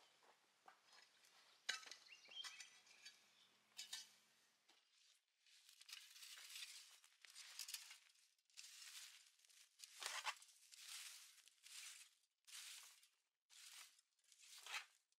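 Faint strokes of a plastic fan rake dragged over loose dry soil and straw, a swish about once a second from about five seconds in, after a few scattered light clicks and scrapes.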